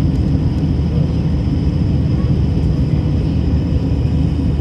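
Steady airliner cabin noise in flight: a constant low rumble of engine and airflow with a faint steady hum, unchanging throughout.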